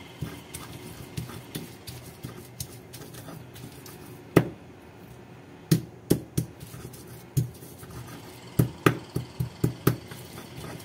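Stone pestle grinding a wet paste of shallots, chillies and garlic in a stone mortar (layah), with irregular sharp knocks of stone on stone. The loudest knock comes about four seconds in, and a quick run of knocks follows near the end.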